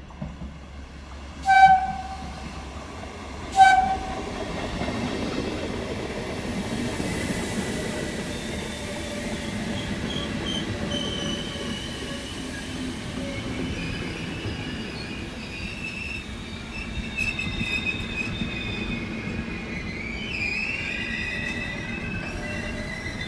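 A train sounds two short horn blasts about two seconds apart, then passes with a steady rumble of wheels on rail and high wheel squeal, the squeal rising near the end.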